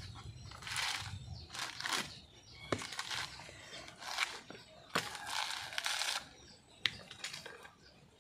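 Coconut husk being torn off by hand: repeated fibrous ripping and crackling, each pull lasting up to about a second, with a few sharp clicks in between.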